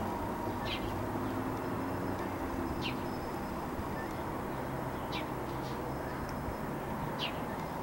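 A small bird's short, high chirps, one about every two seconds, over a steady low outdoor rumble.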